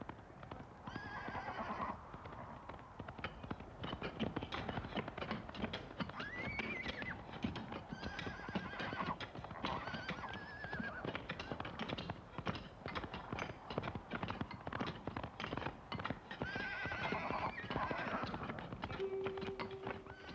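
Horses galloping with a constant clatter of hooves, and several loud neighs rising and falling over it.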